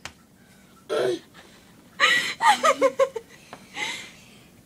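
A person giggling: a breathy burst, then a quick run of short laughs, then another breathy laugh near the end.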